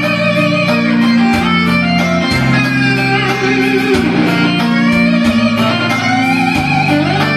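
Karaoke backing track playing an instrumental interlude, led by guitar over a bass line, with no singing.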